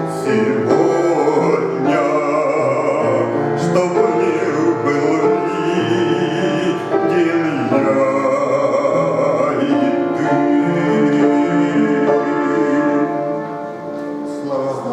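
A man singing a Christian hymn with instrumental accompaniment, holding long wavering notes; the music gets quieter near the end.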